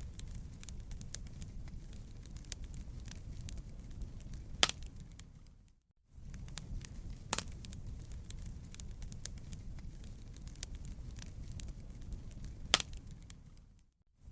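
Wood fire crackling in a fireplace: many small snaps and a few loud pops over a low, steady rumble. The sound fades out and comes back in twice, near the middle and near the end.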